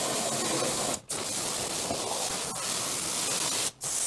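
Hose spray nozzle spraying water into the plastic recovery tank of a walk-behind floor scrubber, rinsing out dirty water and soil: a steady hiss of spray and splashing. It breaks off briefly about a second in and again near the end.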